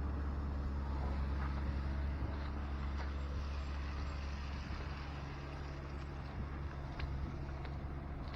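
Steady low rumble of city street traffic, with engine hum and a few faint ticks.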